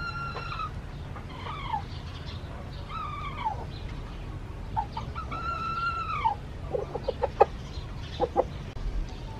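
Roosters crowing: a held crow right at the start, two shorter falling calls, and a longer crow about five seconds in that drops in pitch at its end. It is followed by a quick run of short, sharp clucks from about seven seconds in.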